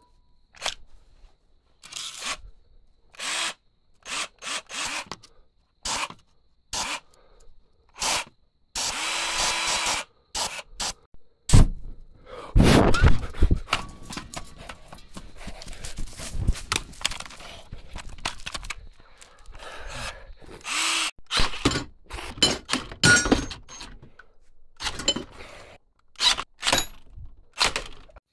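Aerosol spray can squirted in many short hissing bursts. A HART 20V cordless drill runs briefly twice, its motor spinning up and winding down, with knocks and clatter of handling in between.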